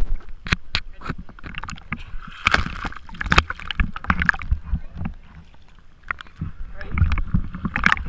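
Lake water splashing and sloshing against a waterproof action camera held at the surface by a swimmer: irregular sharp splash clicks and low muffled bumps as the housing dips in and out of the water.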